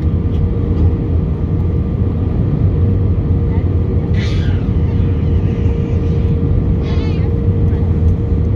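Airliner cabin noise during the landing: a steady low rumble of engines and airflow, with a constant hum running through it. Brief voices are heard about four seconds in and again near seven seconds.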